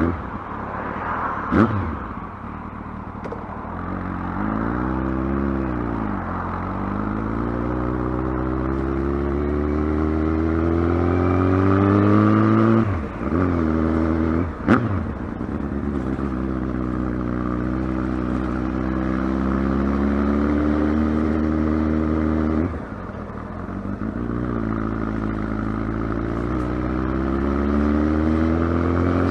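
Kawasaki ZX-12R's inline-four engine under way. A few seconds in the revs rise and fall once. After that the engine pitch climbs slowly and steadily, and it drops quickly at three gear changes from about halfway on.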